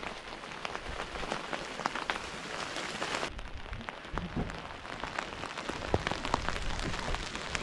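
Rain pattering on the fabric of a tent, a steady hiss with many small drop ticks.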